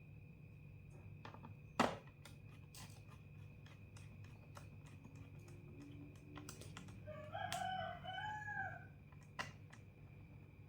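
A rooster crows in the background about seven seconds in, a drawn-out call in two swelling parts, over a low steady hum. Small clicks and ticks from screws being driven back into a laptop's bottom case come throughout, with one sharper click about two seconds in.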